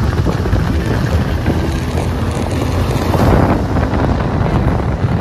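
Wind rushing over the microphone of a moving motorcycle, with the motorcycle's engine and road noise running underneath. The rush grows louder about three seconds in.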